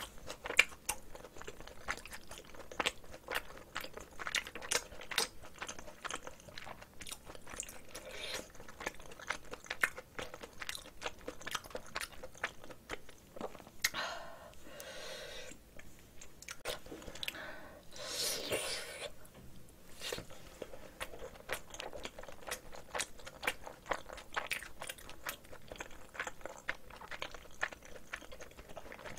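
Close-miked mouth sounds of chewing rice mixed with spicy marinated cockles: a steady run of wet clicks and smacks. Two short hissing stretches come about halfway through.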